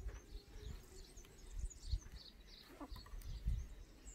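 Soft low thumps and handling noise as a board picture book is opened and laid flat, with birds chirping faintly in the background.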